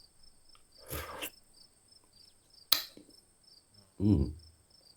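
A man sipping cough syrup: a short slurp about a second in, a sharp click near three seconds, then a brief hum from the throat about four seconds in. A faint, steady, high chirping runs underneath.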